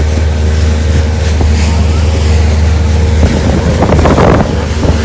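Pontoon boat's motor running steadily underway, a low hum with a steady tone above it, with wind buffeting the microphone. A louder, rough rush of noise comes in about three seconds in.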